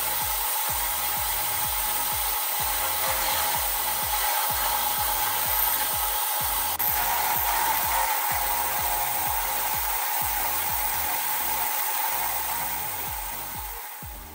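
Milling machine drilling into an aluminium extrusion profile: a steady, loud cutting noise from the spindle and bit that eases off near the end.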